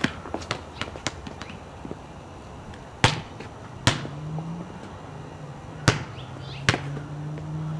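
Basketball bouncing on an asphalt driveway in an uneven dribble: a quick run of light bounces in the first second and a half, then four loud, widely spaced bounces.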